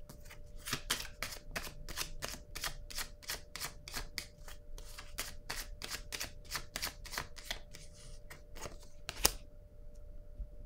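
A deck of tarot cards being shuffled by hand: the cards slap together in a quick, even rhythm of about three or four a second. The shuffling ends with one sharper snap near the end.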